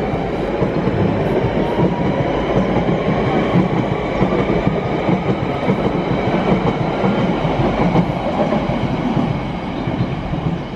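London Underground 1992 Stock train pulling away from the platform, its motors whining with a pitch that slowly rises as it gathers speed. Under the whine is a steady rumble and clatter of wheels on rail.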